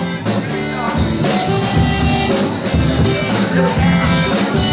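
Live band playing an instrumental break in an upbeat rock song, with drums keeping a steady beat.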